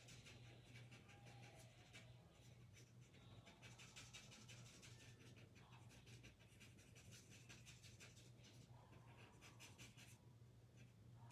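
Faint, quick scratching of a felt-tip marker coloring in a small stamped image on paper, many short strokes in a row, over a low steady hum.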